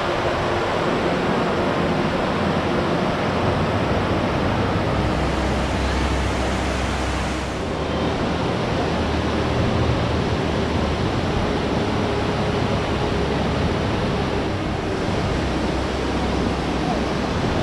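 Large waterfall pouring down, a loud, steady rushing of water with a brief dip about seven seconds in.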